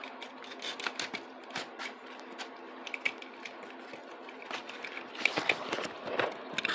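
Hard plastic toy garage ramp pieces clicking and rattling as they are worked loose and handled, in irregular small clicks that get busier and louder near the end, over a faint steady hum.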